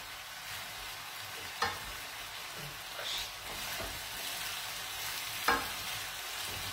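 Spaghetti all'assassina sizzling in an aluminium frying pan, the pasta cooking directly in the pan after a splash of water. A utensil stirs it, knocking against the pan three times.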